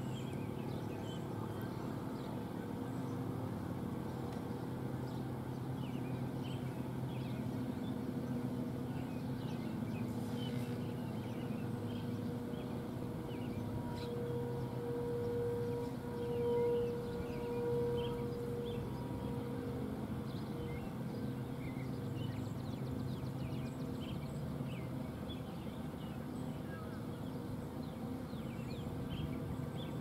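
Federal Signal Model 7 warning siren sounding its steady Alert tone, one unbroken pitch that swells louder for a few seconds mid-way. Birds chirp faintly over it.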